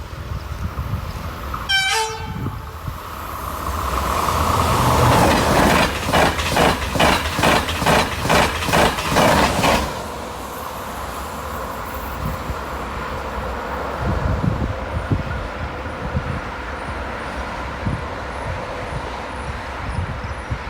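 Passing train in Morocco: a brief horn toot about two seconds in, then a loud rhythmic clatter of wheels over rail joints at about two beats a second. It cuts off at about ten seconds, leaving a steadier, quieter rumble.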